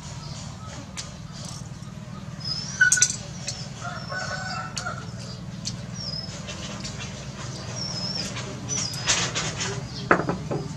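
Chickens clucking and small birds chirping in short high calls, with a few light clicks of a spoon against a plate and a steady low hum underneath.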